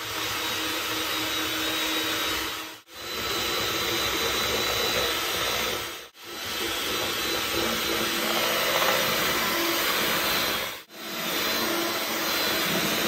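Bomann electric hand mixer running fast, its beaters whisking eggs and sugar into a pale foam in a plastic bowl. A steady whirr with a thin high whine, cut off for an instant three times.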